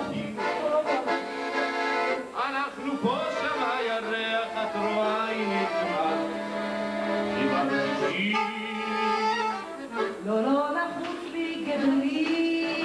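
A man and a woman singing into handheld microphones over instrumental accompaniment, with long held notes that bend in pitch.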